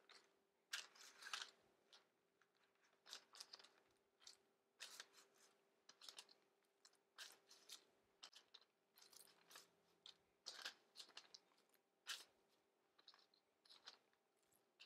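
Faint, scattered crinkles and soft taps of gloved hands flipping raw bacon strips on parchment paper, over a faint steady hum.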